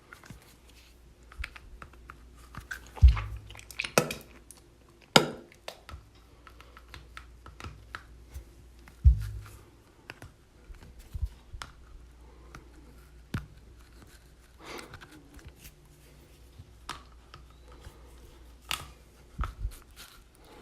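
Teeth being flossed: dental floss clicking and snapping between the teeth, with wet mouth sounds and spitting. Many small irregular clicks, with a few louder sharp snaps about 3, 5 and 9 seconds in.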